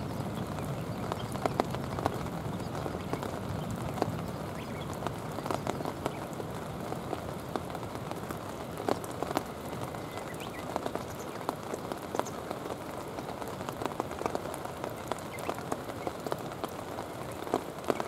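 Steady rain falling on a stony riverbank, with many close raindrop ticks scattered throughout.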